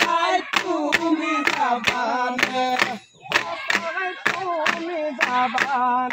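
A group singing a Bihu song, kept in time by a sharp beat about twice a second. The singing and beat break off briefly about three seconds in, then go on.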